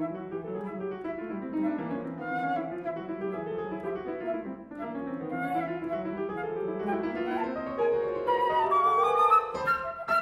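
Flute and Yamaha grand piano playing contemporary chamber music together, the flute sustaining and gliding over the piano. In the last couple of seconds the flute line climbs steeply, and sharp, loud piano strikes break in near the end.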